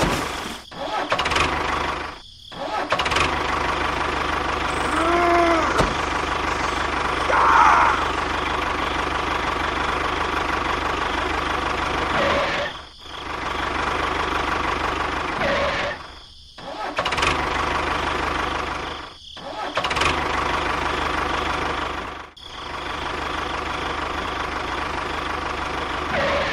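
A small motor running steadily, its sound cut off abruptly for a moment about six times.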